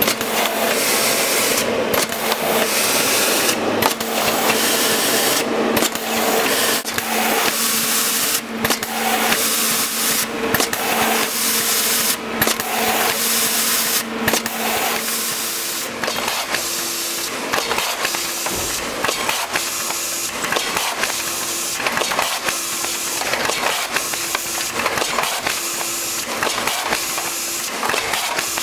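HM Systems wrap-around and front labelling machine running: conveyor belt and label applicators make a steady mechanical noise as packs pass through. From about halfway a short tone pulses about once a second.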